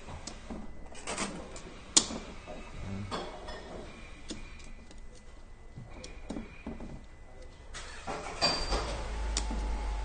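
Light metallic clicks and knocks as parts are handled and fitted into an automatic transmission clutch drum, with one sharp click about two seconds in. Near the end a low steady machine hum starts up.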